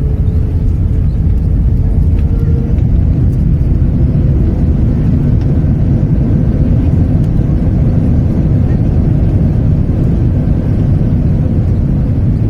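Loud, steady low rumble of an Airbus A319 airliner heard from inside the cabin during landing, with a faint steady whine above it.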